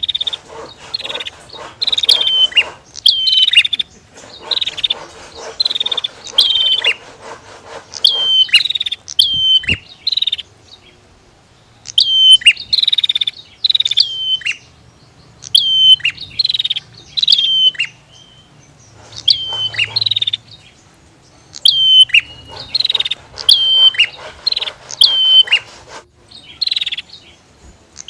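Bar-winged prinias (prenjak) calling. Loud, sharp notes slide down in pitch in short repeated phrases, alternating with stretches of fast, buzzy rattling chatter.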